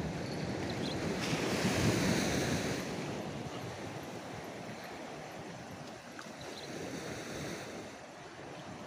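Steady wash of surf and wind, swelling for a second or two about a second in, then settling.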